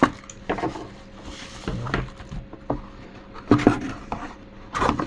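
Hands handling a keyboard and its box packaging: irregular rustling with light knocks and taps of the keyboard and cardboard being moved.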